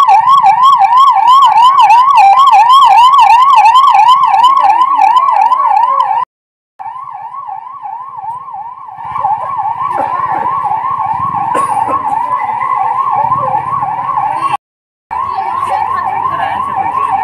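Ambulance siren sounding, loud, its pitch sweeping rapidly up and down about three times a second. It breaks off for a moment twice and is a little quieter after the first break.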